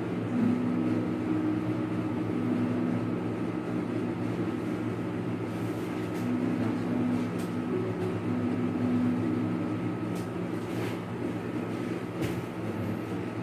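Steady machine hum made of several low tones and a thin higher whine, the strongest tone fading in and out in stretches, with a few faint soft clicks.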